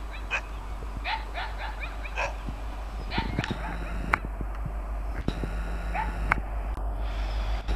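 A dog barking and yelping in quick runs of short, rising yips, over the low rumble of an approaching WDP 4D diesel-electric locomotive that slowly grows louder.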